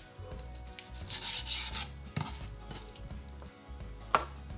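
Chef's knife scraping and slicing through raw chicken breast on a plastic cutting board, trimming away the ligament, with a sharp tap of the blade on the board about two seconds in and a louder one near the end.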